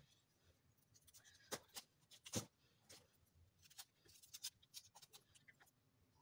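Faint, crisp snaps and cuts of a raw cauliflower as florets are broken off the head and trimmed with a knife. The sharpest snaps come about one and a half to two and a half seconds in, with smaller clicks scattered through the rest.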